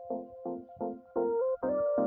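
Background music: repeated chords struck in a steady beat, about four a second, under a simple melody.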